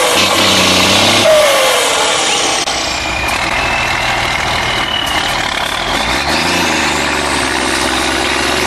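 Heavy off-road trial truck engine running hard under load while pulling a stuck truck out of mud on a cable, its pitch rising in the second half with a climbing whine.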